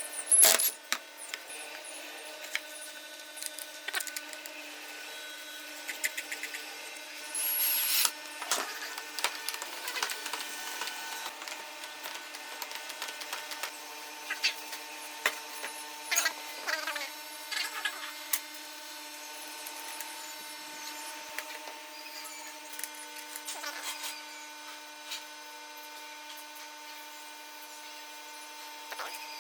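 A small power tool runs steadily with a constant hum, while scattered clicks and scrapes come throughout and a brief louder rasping burst sounds about seven seconds in.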